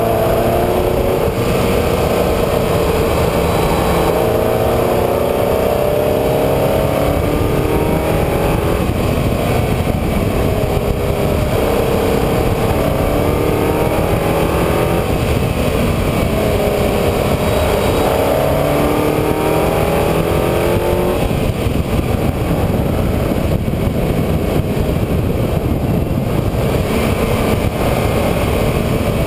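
A road vehicle's engine driven hard on a winding road: its pitch climbs under acceleration, drops back and climbs again several times, then runs steadier near the end. A heavy rumble runs underneath.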